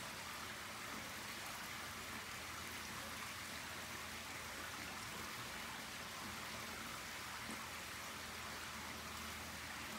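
A small waterfall splashing steadily over rocks into a pool: an even, unbroken rush of water.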